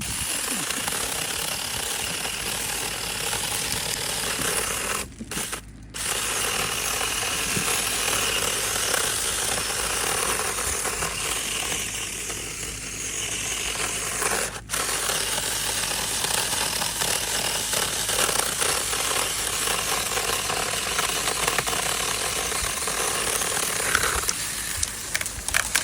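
TomyVic 21-volt, 6-inch handheld battery chainsaw running continuously as it cuts through a small tree, the chain whirring steadily. It cuts out briefly about five seconds in and again for an instant near the middle.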